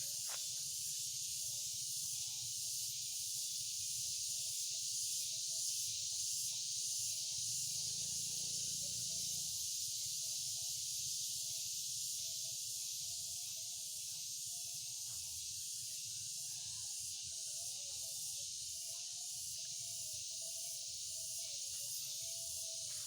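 A steady, high-pitched hissing drone, the strange sound of the rice fields, with a faint wavering tone underneath.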